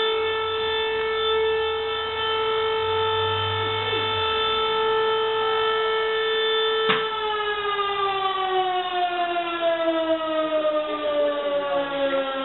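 Fire station siren holding one steady wailing tone. After a click about seven seconds in, its pitch falls slowly as it winds down.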